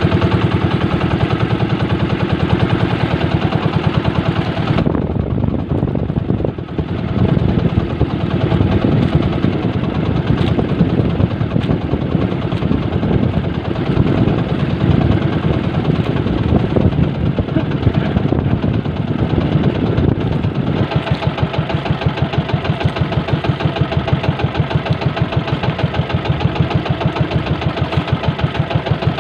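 Small fishing boat's engine running steadily. About five seconds in its tone changes, and near the end it settles into an even pulsing beat.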